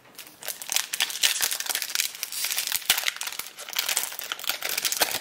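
A shiny foil trading-card booster-pack wrapper crinkling as hands pull it open: a dense run of sharp crackles that starts about half a second in.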